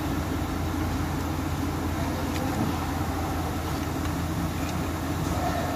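A steady low mechanical drone, with a couple of faint light clicks about two and a half and four seconds in.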